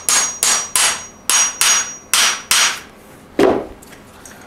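Hammer striking a star nut inserter tool, driving a star nut down into a bicycle fork's steerer tube: quick sharp taps about three a second, then one heavier, lower-sounding blow about three and a half seconds in.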